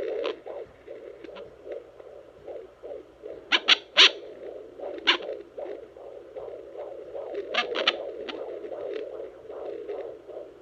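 Handheld home fetal Doppler sounding through its speaker at 20 weeks: fast whooshing pulses of the fetal heartbeat, about two a second, broken by several bursts of sharp scratchy crackles, which the mother takes for the baby moving.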